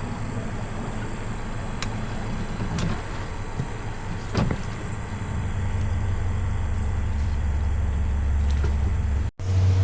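Boat motor running steadily with a low hum that gets louder about halfway through, with a single knock about four seconds in.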